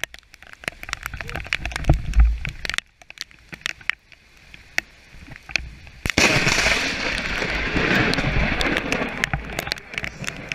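Rain clicking and crackling on a wet handheld camera, then about six seconds in a sudden loud crash from a close lightning strike that runs on as a rushing roar for about four seconds before easing.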